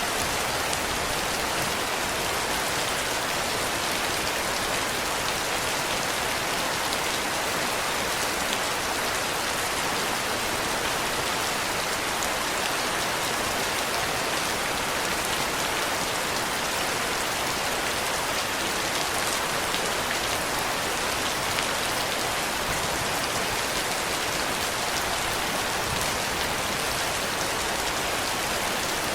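Steady rain falling, an even unbroken hiss with scattered drop hits.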